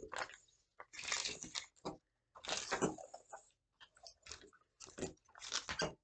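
A person eating baby food puree close to the microphone: irregular mouth and chewing noises in short bursts.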